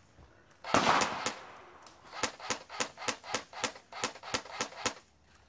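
Airsoft gun firing: a loud burst of shots a little under a second in, then a run of about eleven single shots at roughly four a second.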